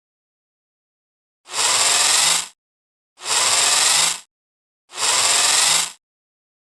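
Robot arm servo motor movement sound effect: three alike bursts of whirring, each about a second long and evenly spaced, with silence between.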